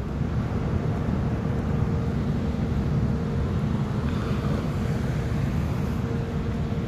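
Wind buffeting a phone's microphone while walking: a steady low rumble, with a faint steady hum beneath it.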